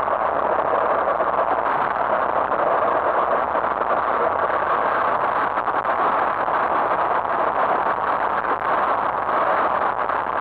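Steady rolling noise of a soapbox cart's hard wheels on rough asphalt, mixed with wind and a constant light rattle of the cart's body, heard from on board as it runs downhill. No engine is heard.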